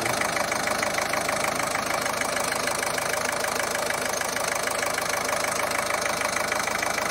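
Ford 1.5 TDCi four-cylinder diesel engine idling steadily, with a rapid, even diesel tick. It has been freshly repaired after a jumped timing belt and bled of air, and is running evenly while still settling into its adaptive idle.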